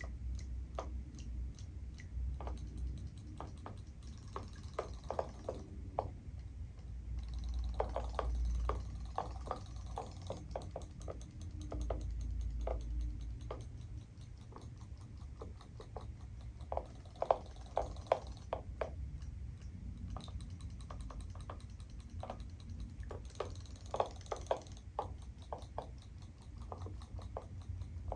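Irregular light clicking and ticking from a battery-powered robotic toy fish swimming in a plastic tub of water, with a few short stretches of faint water noise.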